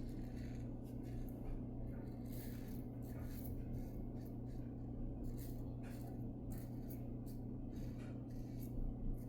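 Safety razor strokes scraping through lather and stubble: many short, irregular rasping strokes over a steady low hum.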